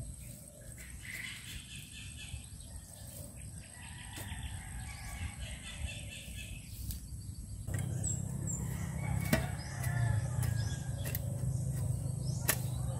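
Steel shovel digging and scraping in dirt around a wooden post, with a few sharp knocks. Chickens call in the background.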